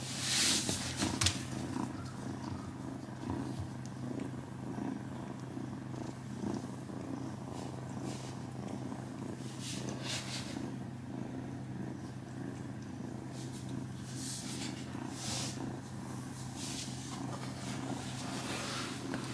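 Domestic cats purring steadily and continuously, with a few short soft rustles of fur or bedding.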